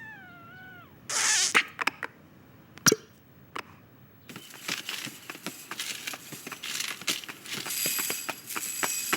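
Animated-film sound effects: a short burst of hiss about a second in, a single thump near the three-second mark, then a busy run of small clicks and taps from about four seconds on.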